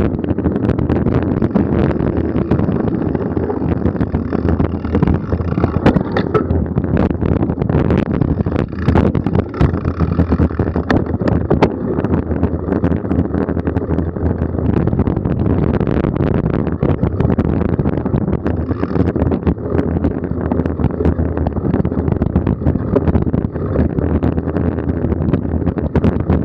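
Wind buffeting the microphone of a camera riding on a mountain bike, over the steady rumble and rattle of the bike rolling along a dirt forest trail, with frequent sharp knocks from bumps in the trail.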